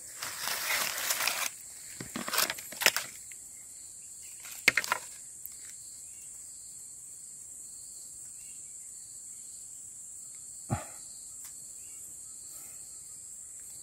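Rustling and snapping of dry leaves and twigs underfoot in forest undergrowth for the first second or so, then a few single sharp cracks of wood. A steady, high-pitched chorus of night insects runs under it all.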